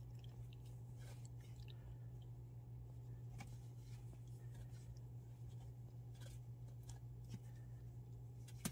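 Puppy biting and tugging at a hanging plush toy: faint scattered rustles and small clicks over a steady low hum.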